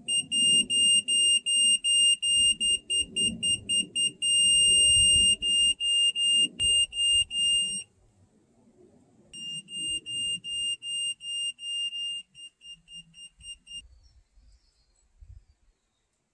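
Electronic level held against a wooden door post, beeping about twice a second and holding one steady tone for about a second and a half near the middle, the tone that marks the post as plumb. The beeping stops, starts again, quickens near the end, and cuts off. Low knocking and handling of the post run underneath.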